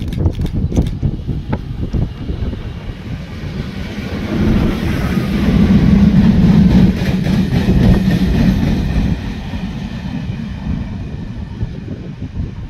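SM42 diesel locomotive passing close with three open coal wagons. Its engine hum swells in the middle seconds, with wheels clicking over the rail joints, then fades as the train moves away.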